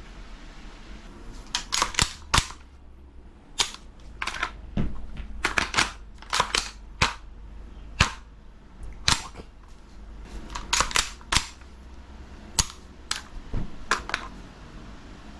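Gas blowback airsoft carbine, a King Arms BlackRain 9mm, firing about twenty single shots in irregular runs; each is a sharp pop.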